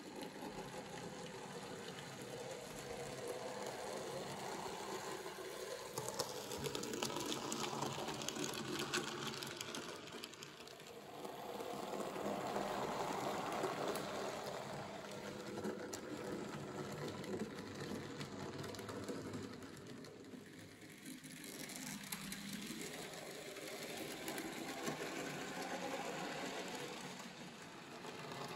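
Small electric model locomotive running along the track, its motor and gears whirring with faint clicks from the wheels. The sound grows louder and fades several times as the train comes past and moves away.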